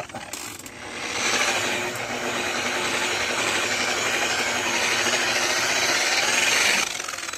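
Corded rotary buffer with a wool pad spinning against fibreglass gelcoat, cutting oxidation with buffing compound: a loud steady rushing whir over the motor's hum. It swells about a second in and drops back sharply near the end.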